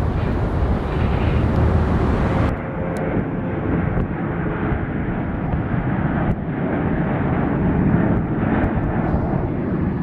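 Jet airliner engines at takeoff power as a departing jet climbs out. About two and a half seconds in, the sound cuts to a Boeing 737-700 on its takeoff roll, its CFM56-7B turbofans running steadily at full takeoff thrust.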